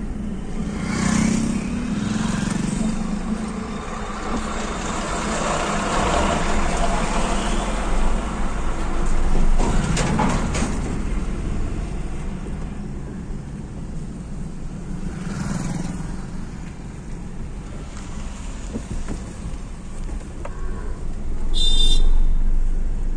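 Steady engine and tyre road noise inside a Maruti Swift Dzire driving on a highway, swelling and fading a few times as other vehicles pass. A short, high-pitched beep sounds near the end.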